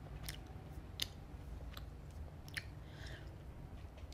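Gum chewing close to the microphone: a few short, sharp wet clicks about once a second, over a faint low hum.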